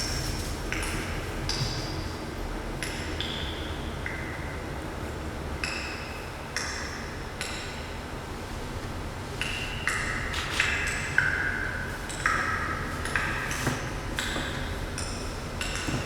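100,000-year-old ice popping and crackling as trapped air escapes: irregular sharp pings, each with a brief ringing tone at its own pitch. The pops come thicker and louder from about ten seconds in.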